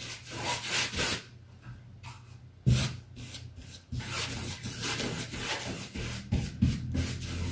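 Paintbrush rubbing a white acrylic-and-glue primer onto cotton canvas over a wooden board in repeated back-and-forth strokes. The strokes pause about a second in, with a single knock about two and a half seconds in, then resume steadily from about four seconds.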